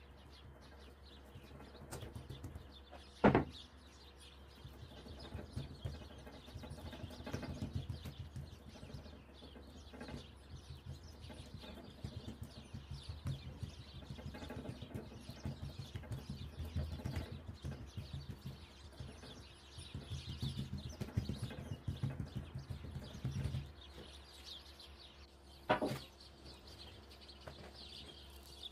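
Hands pressing, patting and stretching a stack of layered dough on a wooden table: soft, irregular rubbing and patting, with two sharp knocks, one a few seconds in and one near the end.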